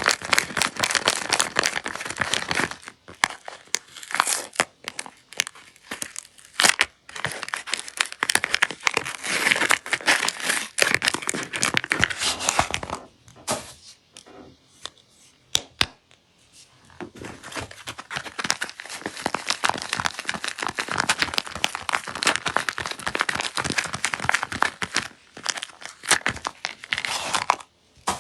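Soap packaging being torn open and crinkled by hand, in long crackling bursts with a quieter stretch of scattered clicks about halfway through.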